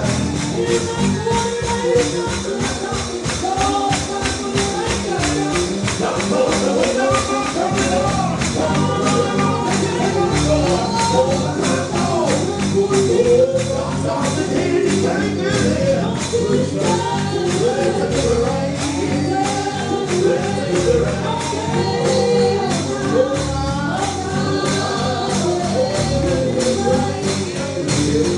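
Gospel song with singing voices over a tambourine shaken on a steady beat.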